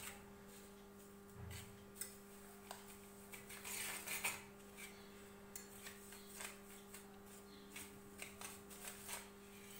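Wire whisk clicking and scraping irregularly against a pan while milk powder, sugar and milk are mixed into a thick paste; the sounds are faint.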